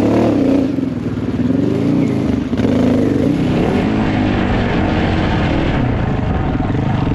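Enduro motorcycle engine heard from on board, revving up and down as the bike climbs a loose gravel hill.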